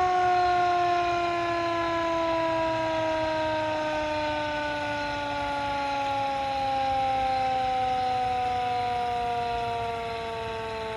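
Vixen Horns VXS-2000MTP hand-crank siren sounding one long wail, its pitch sliding slowly and steadily downward as the rotor spins down; it gets a little quieter near the end.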